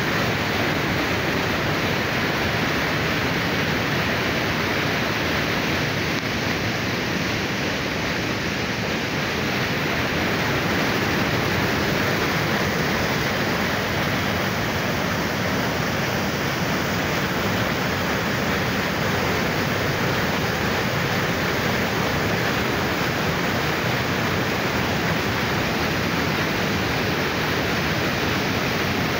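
White water pouring and churning through a concrete channel, a loud, steady rush of falling, foaming water close by.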